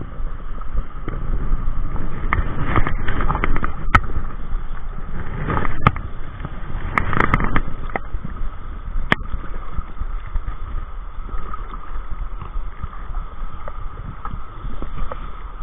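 River current rushing steadily, with louder splashing swells and a few sharp clicks between about two and nine seconds in.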